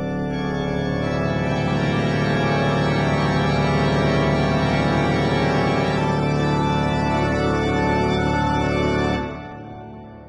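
Outro music: a sustained organ chord held steady, fading away about nine seconds in.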